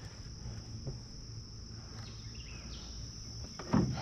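Insects calling outdoors in a steady, unbroken high-pitched drone. A brief thump comes near the end.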